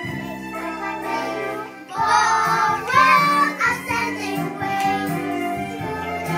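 A song: a child's voice singing over held instrumental tones, with percussion tapping in from about halfway through.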